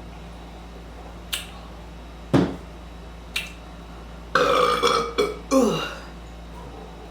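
A woman burping: a short burp about two and a half seconds in, then a long, drawn-out burp in three pushes near the end that drops in pitch as it finishes. Two light clicks come before them.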